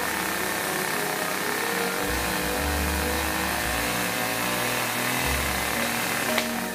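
Chainsaw running steadily, with background music underneath.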